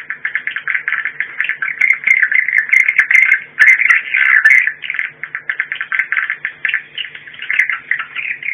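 Swiftlet lure call of the 'warning sound' type, as played to draw edible-nest swiftlets: a loud, dense, unbroken chatter of rapid high twittering chirps.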